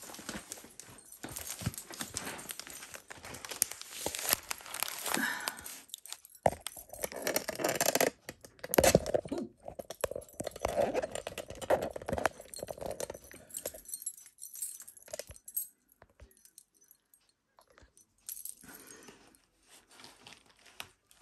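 Rustling and crinkling of plastic packing and bubble wrap being pulled from a shipping box, with small clicking and jangling. Busy for most of the time, then quieter scattered handling noises toward the end.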